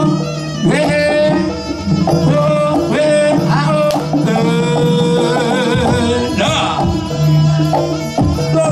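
Music: a melody line that wavers in pitch, holding one long note about halfway through, over a loud backing with drum hits.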